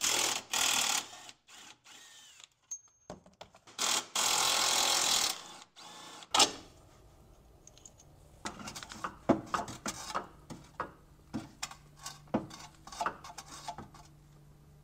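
Cordless power wrench running in short bursts on the steering rack's mounting bolts: two brief runs at the start, then a longer run of about a second and a half around four seconds in, followed by a sharp knock. After that come scattered light clicks and knocks of metal parts being handled.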